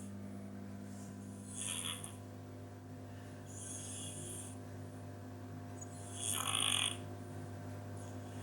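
Domestic cat snoring while asleep: three snoring breaths about two seconds apart, the third the loudest, over a steady low hum.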